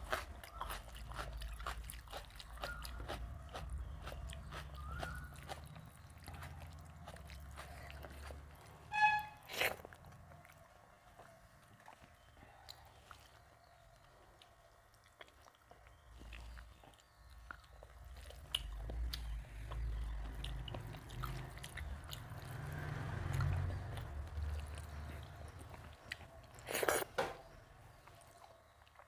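Close-up chewing and mouth sounds of a person eating rice, dal, fried fish and raw onion by hand, with small clicks throughout. A few sharp crunches or clicks stand out, about nine seconds in and again near the end.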